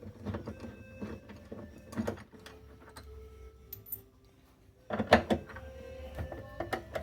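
Scattered metallic clicks and knocks of hand tools working on a washing machine's motor mounting while the motor is being removed. A louder cluster of knocks comes about five seconds in.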